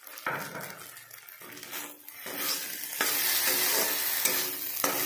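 Metal spatula stirring and scraping onion-capsicum masala with tomato sauce around a kadai while it sizzles in the oil. The sizzle and scraping grow louder about three seconds in.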